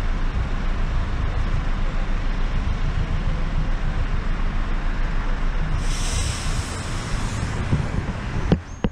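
Road and traffic noise heard from aboard a moving sightseeing bus, with a steady low rumble and wind on the microphone. A high hiss comes in about six seconds in and lasts over a second, and near the end a sharp click is followed by a sudden drop in level.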